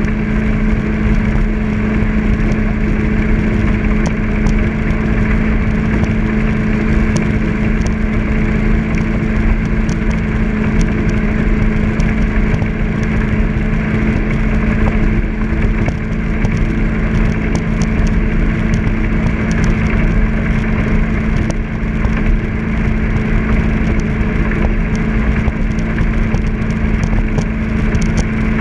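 Jet boat's engine running steadily at an easy cruise, a constant drone over a rush of noise.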